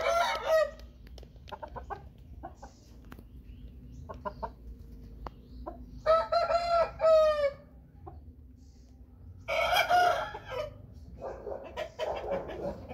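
Game rooster crowing twice: a long crow about six seconds in and a shorter one about three seconds later, with a brief call at the very start and scattered short clucks between.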